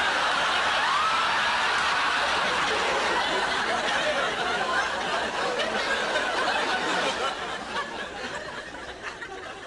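A group of people laughing loudly together, many voices overlapping, dying down over the last couple of seconds.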